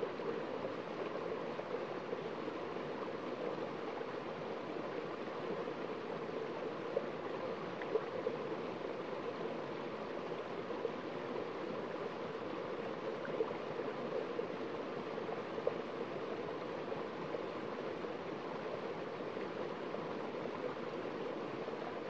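Small forest stream cascading over rocks: a steady rush and splash of falling water, with a few brief louder splashes.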